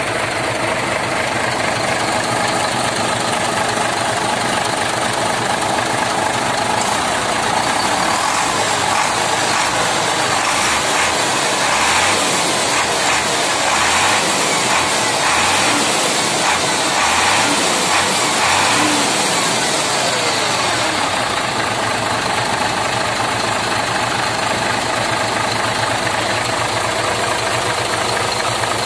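Hino 500 truck's turbocharged diesel engine running with a steady high turbo whine over its idle; in the middle it is revved several times, each rev swelling the sound before it settles back to idle.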